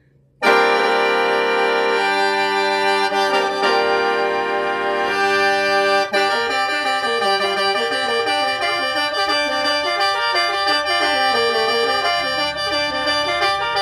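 Solo khaen, the bamboo free-reed mouth organ, played in the lai yai mode pitched in G minor. It comes in about half a second in with sustained chords over a drone, then from about six seconds in moves into quick melodic figures over the held drone.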